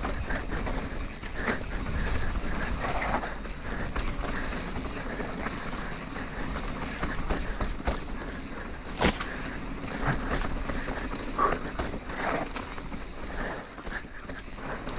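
Mountain bike riding down a dry dirt singletrack: tyres rolling over packed dirt and gravel with wind rumble on the microphone, and the bike rattling and knocking over bumps, with a sharp knock about nine seconds in.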